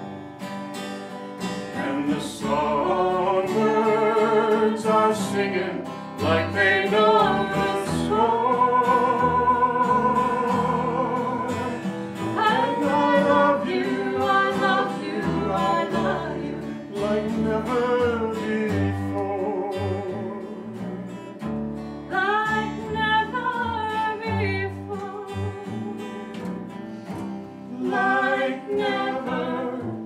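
Live acoustic performance: a woman sings a slow ballad, holding long notes with vibrato, over fingerpicked acoustic guitar and upright bass.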